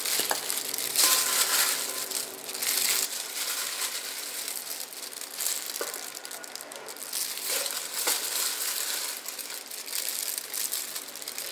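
Disposable plastic glove crinkling as a gloved hand lifts and piles sauce-coated chicken feet and mango pieces into a bowl, a continuous rustle that is louder in the first few seconds.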